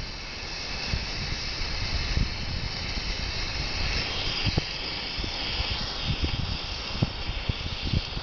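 Emergency road flare burning with a steady hiss, louder for a couple of seconds about halfway through, while held under kindling to start a fire. Scattered short low thumps sound underneath.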